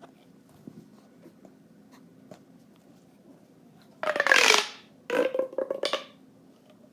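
A handheld fidget toy being played with: faint light clicks at first, then louder rubbing and rasping bursts in the second half.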